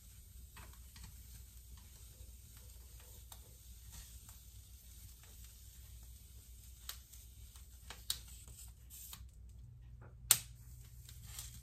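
Chopsticks clicking and tapping against a frying pan as charred vegetables are picked out of it, in a few scattered clicks; the sharpest comes a little past ten seconds in.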